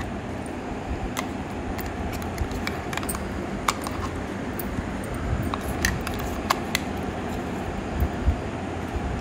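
A spoon scraping and clinking against the inside of a stainless-steel mixer-grinder jar while scooping out thick blended lentil paste, in irregular scattered clicks over a steady background noise.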